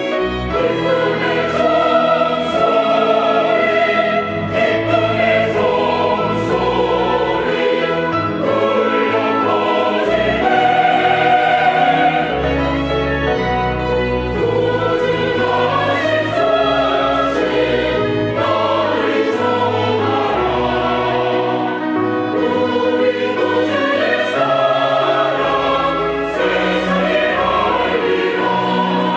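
Church choir singing a choral anthem in sustained, changing chords, with instrumental accompaniment.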